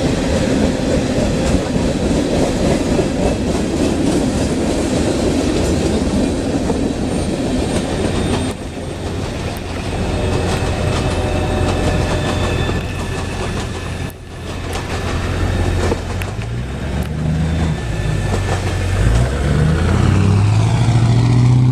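CSX freight train's tank cars rolling past over a grade crossing, a dense steady rumble of wheels on rail. The noise thins after about eight seconds as the last cars go by, and near the end low engine sounds of road vehicles rise as they start to move.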